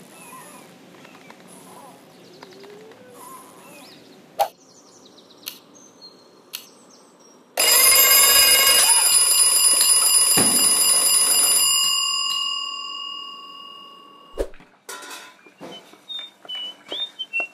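Twin-bell alarm clock ringing loudly for about four seconds, starting a little under halfway in, then fading away. Before it there are quiet small noises and a few sharp clicks; near the end come light clicks and short squeaks.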